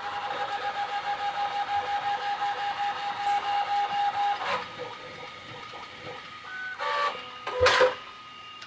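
FDM 3D printer's stepper motors whining steadily with a pulsing rhythm as the print head lays down the top layers of a part. About four and a half seconds in the steady whine stops, then come a few short higher motor tones and a louder burst of motor noise near the end as the head makes quick moves.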